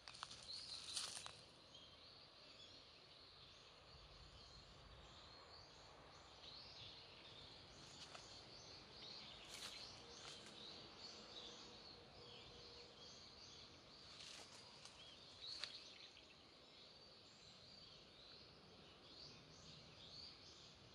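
Faint chorus of many small birds chirping, with a few short rustles or knocks now and then, the loudest about a second in.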